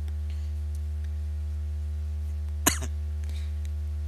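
Steady low electrical hum, like mains hum picked up by the recording microphone, with one sharp click about two and a half seconds in.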